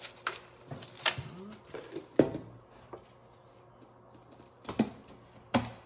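A handful of sharp, irregular clicks and light clatter as a crispy fried topping is shaken from a plastic tub onto a baked fish in a disposable aluminium foil tray.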